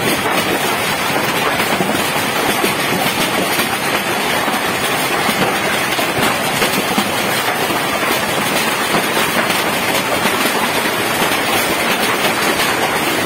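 Heavy hailstorm: hailstones and rain pelting down without a break, a dense, steady clatter of countless small impacts.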